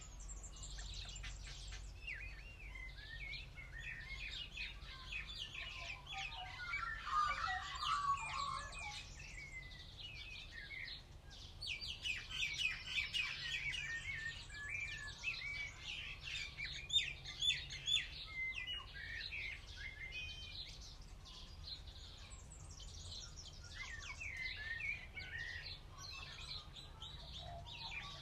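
Wild birds singing and chirping, several at once, in a near-continuous chorus of high trills and tweets, with a lower call about seven seconds in.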